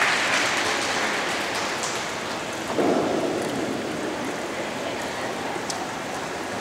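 An even rushing noise, loudest at the start and slowly fading, with a brief lower swell about three seconds in.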